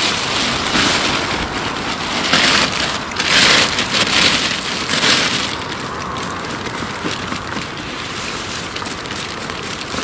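Crackling rustle of dry forest leaf litter and a plastic bag being handled as the litter is scooped into the bag. It is busiest for the first few seconds and turns softer and steadier about halfway through.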